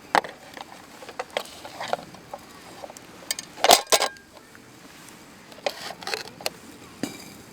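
Clinks and knocks of small hard objects being handled: a string of sharp impacts, loudest in a cluster about three and a half seconds in.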